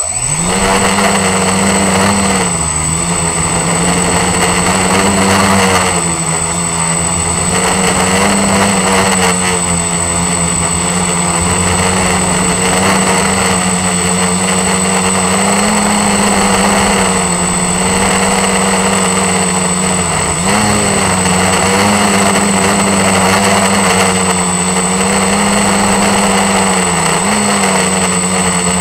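ST360 quadcopter's motors and propellers spinning up suddenly and running at flight speed, heard close up from on board: a loud steady buzz whose pitch wavers slightly with the throttle, with a thin high whine over it.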